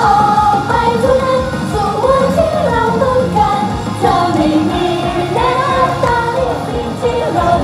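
Live pop song: a female idol group singing into microphones over a recorded backing track.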